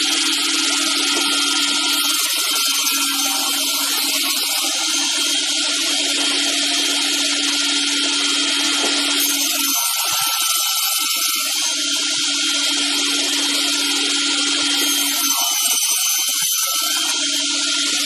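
Double-blade round-log sawmill running: its motors and twin saw blades spinning with a steady hum, whine and hiss. The sound wavers briefly twice past the middle.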